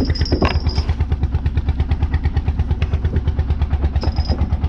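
Fishing boat's engine running steadily with a rapid, even chug, several beats a second.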